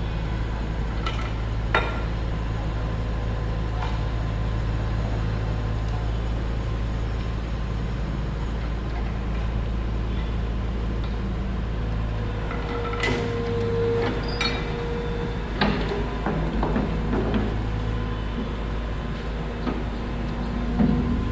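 Komatsu hydraulic excavator's diesel engine running steadily, with a few scattered metallic knocks and clanks, one near the start and a cluster after the middle.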